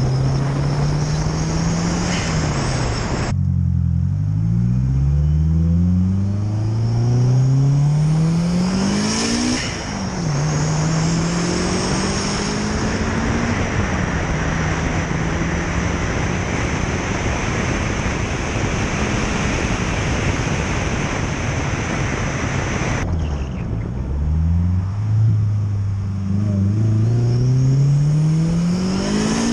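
Turbocharged 4G63 inline-four of a 1997 Mitsubishi Eclipse GSX accelerating hard. The engine pitch climbs and drops back at each upshift, with a loud rushing noise while under load. About 23 s in the throttle lifts, then it pulls again, rising to another shift near the end.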